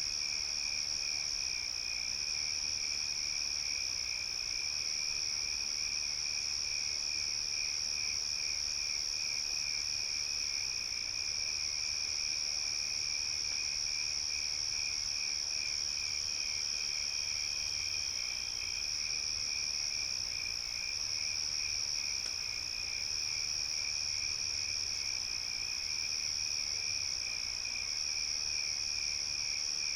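Night chorus of crickets chirping: a continuous high trill with a lower, rapidly pulsing chirp beneath it, steady throughout.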